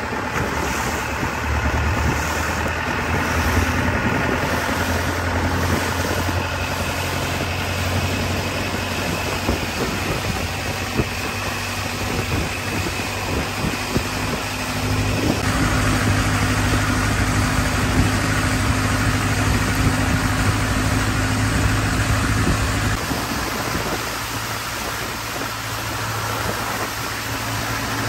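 Boat engine running steadily under way, growing louder about halfway through and easing back a few seconds later.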